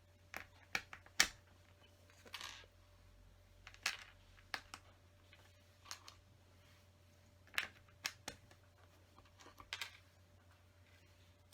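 Small plastic LEGO pieces clicking and tapping as they are picked up and pressed into place, a dozen or so irregular sharp clicks with a few brief rustles, over a faint steady hum.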